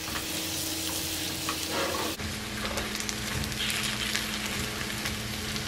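Small potatoes sizzling steadily in butter and oil in a frying pan, with a spatula stirring and scraping them through the pan.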